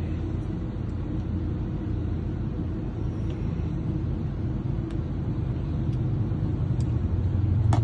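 A vehicle running: a steady low rumble with a few faint clicks.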